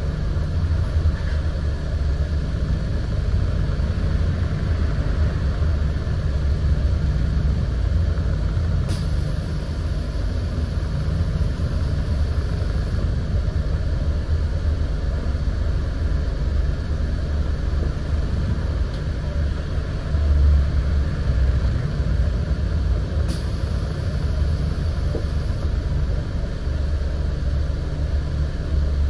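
Scania N94UD double-decker bus on the move, heard from inside: its diesel engine and the road noise make a steady low rumble. Two sharp clicks come about nine and twenty-three seconds in, and a brief heavier low surge about twenty seconds in.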